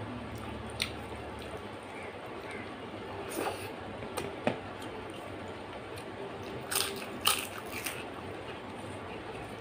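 Eating rice and dal by hand: fingers squishing and mixing the wet rice on a plate, and a few short clicks and smacks of chewing, the loudest cluster about seven seconds in.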